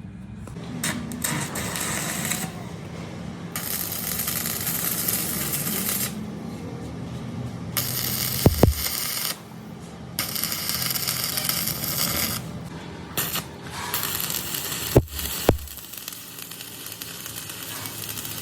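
Workshop metalworking sounds: repeated bursts of hiss, each lasting a second or two, with light metallic clinks and three sharp knocks in the second half.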